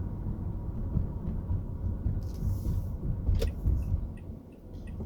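Car interior road and engine rumble while driving, a deep uneven noise, with a short hiss a little past the middle and a sharp click soon after. Faint regular ticks begin near the end.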